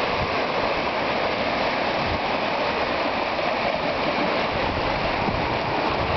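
Seawater rushing steadily over and between rocks into a natural rock pool.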